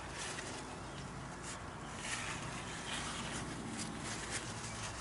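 Faint rustling and rubbing of a shop rag and gloved hands handled around the axle hub, with soft irregular scuffs.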